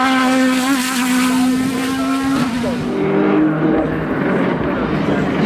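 Race car engine at high revs, holding a steady note, then dropping sharply about two and a half seconds in and running on at a lower, uneven pitch.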